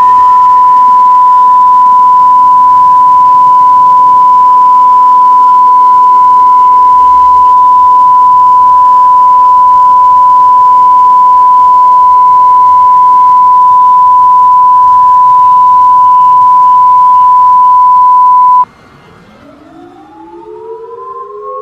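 A steady, loud, high broadcast test tone at a single pitch, the 1 kHz tone of a station going off normal programming. It cuts off abruptly a few seconds before the end, with a faint wavering wail beneath it. Near the end a siren-like tone starts low and glides upward.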